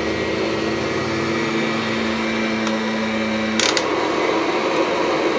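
Kirby Sentria upright vacuum running steadily on carpet, a hum over a rush of air. About two-thirds of the way through a sharp click comes and the hum changes pitch, with the motor still running.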